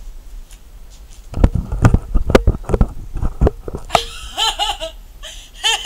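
A person laughing in quick, high-pitched bursts, in two bouts in the second half, after a run of low thumps.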